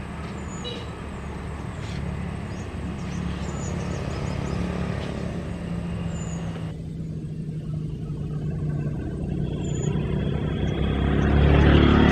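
Large diesel tour bus engine running as it approaches, growing steadily louder and swelling sharply near the end.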